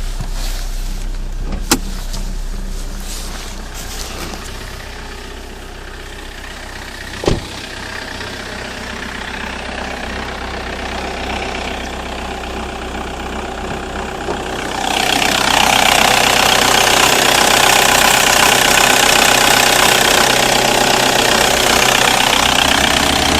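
Toyota 1CD-FTV 2.0-litre four-cylinder common-rail diesel idling cold, with the low rumble it makes before it is up to operating temperature. There are two sharp clicks early on, and about fifteen seconds in a louder, steady rushing noise comes in over the engine and stays.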